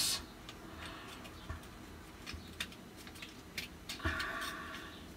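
Small scattered clicks and rubbing of stiff plastic face-shield frame parts being handled and fitted together, with a short scraping rub about four seconds in.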